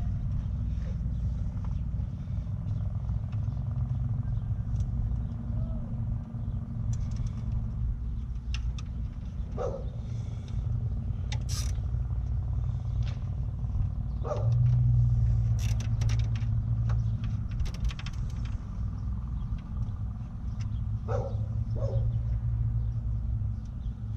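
Steady low rumble, with scattered light clicks and taps from hands handling parts in the engine bay. A dove coos in short calls a few times, about ten seconds in, near the middle and again near the end.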